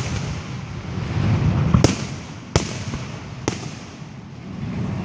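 Aerial firework shells bursting: three sharp bangs, under a second apart, around the middle, over a low rumble.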